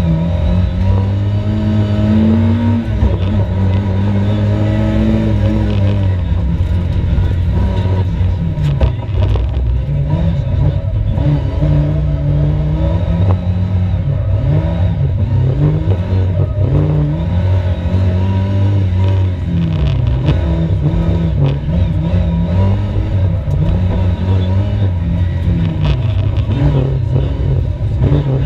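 Competition car engine revving hard, its pitch climbing and dropping again and again every second or two as it runs at speed on a race track.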